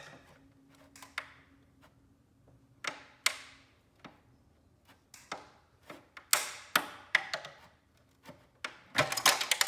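Flathead screwdriver prying and scraping at a small switch set in a hard plastic shredder housing: scattered clicks and short scrapes, with a quick run of clicks near the end.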